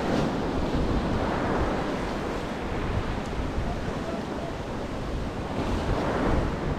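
Ocean swell surging and breaking in white water against a rock ledge just below, with wind buffeting the microphone.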